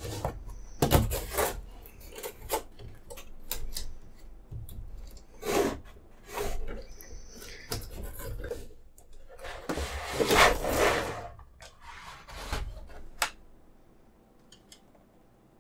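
Cardboard box and clear plastic display case being handled and slid apart by hand: a run of scraping, rubbing and sharp clicks, loudest about ten seconds in and dying away near the end.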